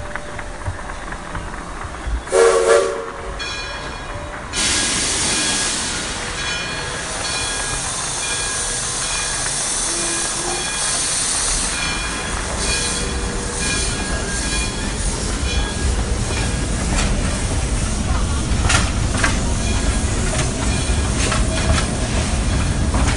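Model trains running on a layout, their wheels rumbling and clicking over the track, with a short horn blast from a locomotive's sound system about two seconds in. A hiss starts suddenly at about four and a half seconds, and the rumble grows louder in the second half as a train passes close by.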